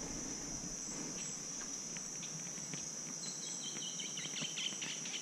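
Steady, high-pitched chorus of insects, with a short run of falling chirps starting about three seconds in.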